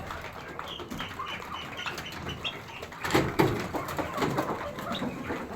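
Poultry in a coop calling and clucking, with a string of short high calls in the first half. A louder knock or clatter comes about three seconds in.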